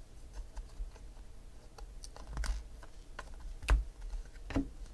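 Baseball trading cards being flipped and slid one by one through the hands: a scatter of light clicks and snaps of card stock, with a few sharper ones in the second half.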